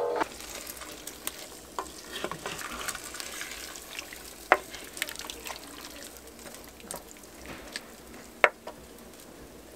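Wooden spoon stirring beans in tomato sauce in a clay güveç pot, over a soft steady sizzle of the simmering stew, with light clicks and two sharp knocks of the spoon against the pot, one near the middle and one near the end.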